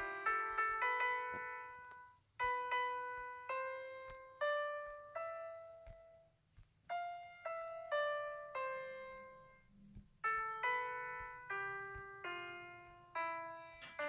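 Background piano music: a gentle melody of struck notes and chords, each note fading away, with short breaks about two and six seconds in.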